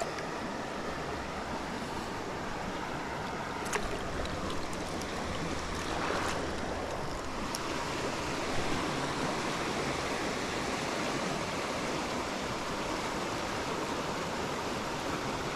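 Trout stream water running steadily, with a few brief faint clicks.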